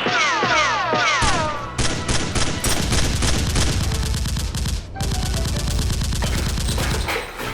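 Rapid automatic gunfire, the dubbed firearm sound effects of a staged Nerf battle. Several tones falling in pitch open it, then long bursts of shots in quick succession until near the end.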